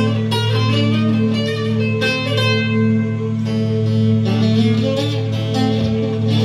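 Instrumental music: plucked strings playing quick runs of notes over a steady low drone.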